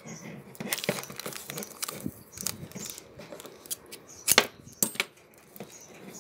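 Adhesive tape being pulled off its roll and wrapped around a metal tube: crackling, tearing in short bursts, with a few sharp clicks, the loudest a little past four seconds in.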